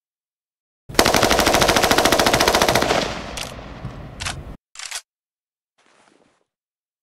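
AK-47 assault rifle firing one burst of rapid fully automatic fire, about two seconds long, starting about a second in. The burst fades into a decaying echo, broken by a few short sharp sounds near its end.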